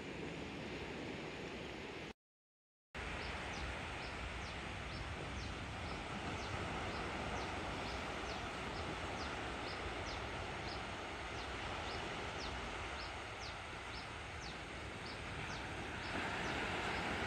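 Surf breaking and washing on a sandy beach, a steady rush that cuts out for under a second about two seconds in. Over it, an animal's short high chirp repeats about twice a second.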